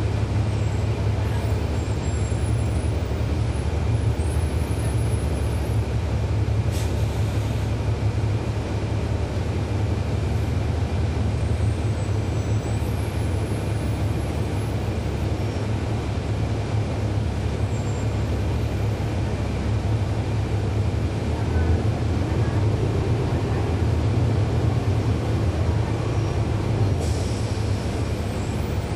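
Inside a 2011 NABI 40-SFW transit bus under way: its Cummins ISL9 diesel engine and drivetrain run with a steady low rumble. Two short hisses of air come through, one about seven seconds in and one near the end.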